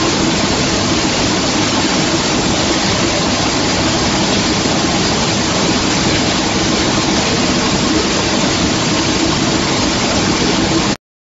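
Steady loud rush of air and machinery from a running wood sawdust dryer: fan and airflow through the steel ducting and cyclone, with a steady hum underneath. It cuts off abruptly near the end.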